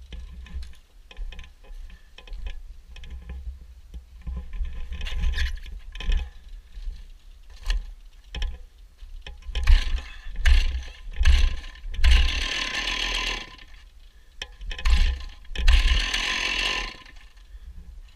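Stihl chainsaw running over a steady low rumble, with irregular knocks and scrapes and two longer stretches of louder noise about twelve and sixteen seconds in.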